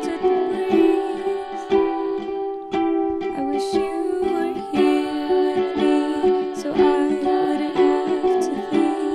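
Background music: a light tune of plucked strings with a steady, even pulse.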